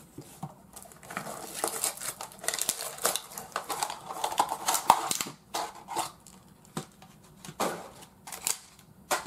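Crinkling and tearing of a Sportsclix figure pack's packaging being opened by hand: a dense run of irregular crackling and rustling for several seconds, then a few separate clicks and rustles.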